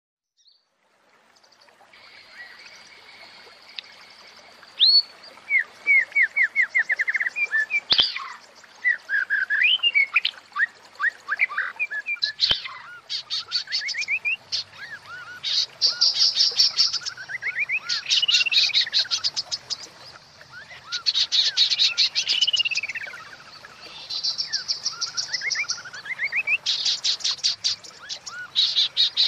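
Female white-rumped shama calling. Bouts of rapid rattling ticks alternate with short rising and falling whistles, repeated every couple of seconds. It is the call keepers play to bring male shamas into breeding condition. Two sharp clicks come at about 8 and 12 seconds in.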